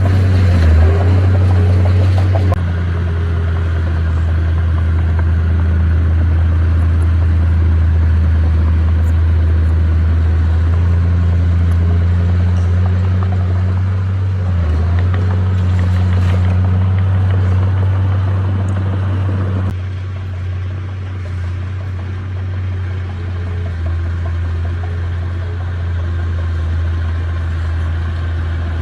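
Diesel engine of a heavy earthmoving machine running steadily with a deep hum. It dips briefly about a second in and again about halfway, and turns quieter about two-thirds of the way through.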